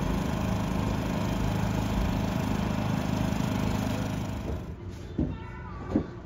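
A food truck's generator engine running steadily with a low, even hum. The hum fades away about four and a half seconds in, and a couple of short knocks follow near the end.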